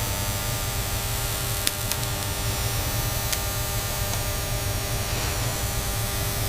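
Steady hiss over a low hum, like factory machinery background noise, with a few faint clicks.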